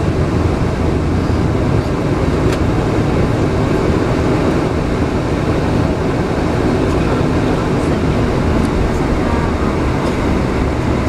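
Inside the cabin of a Boeing 747-436 on its takeoff roll: its four Rolls-Royce RB211 turbofans at takeoff thrust, with a loud, steady rumble through the airframe. A low steady hum comes up near the end.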